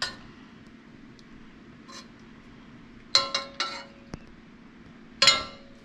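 A metal utensil clinking against cookware, each strike ringing briefly: three quick clinks about three seconds in and a louder one near the end, as cooked potatoes are lifted out of their pot and checked.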